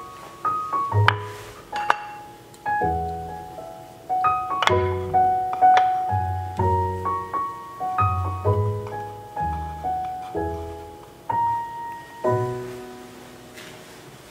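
Background piano music: a slow melody of single notes over low bass notes, each note ringing and dying away, fading out near the end.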